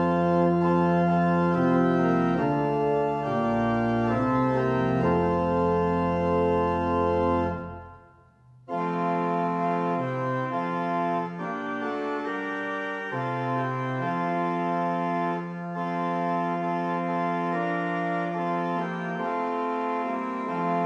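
Organ playing slow, held chords, with a deep pedal bass under them at first. About eight seconds in the music breaks off briefly, then resumes with chords but without the deep bass.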